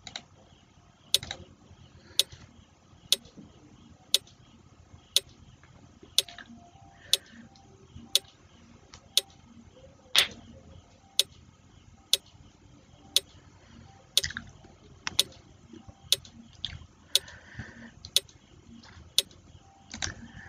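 Quiz countdown timer ticking like a clock, one sharp tick about every second.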